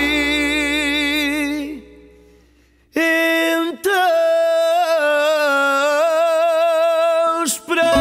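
Male fado singer holding long, wavering notes. The first, over guitar and bass, fades out about two seconds in; after a second of near silence he holds another long note almost alone, with a brief break partway through.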